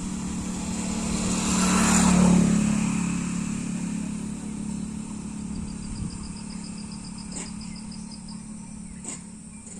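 A motor vehicle passing by, its engine and road noise building to a peak about two seconds in and then slowly fading away.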